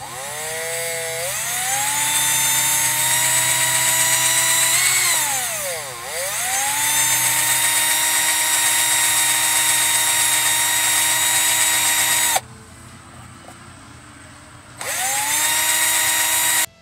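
Cordless electric drill whining as it drills out the leftover plastic stops in a steering-wheel emblem mount. It speeds up, slows almost to a stop about six seconds in and speeds up again, cuts off suddenly about twelve seconds in, then runs again briefly near the end.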